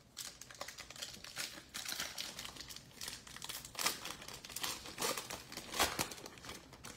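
Wrapper of a 2021 Panini Chronicles Football trading-card pack being torn open and crinkled by hand: a dense, irregular run of crackles and rustles.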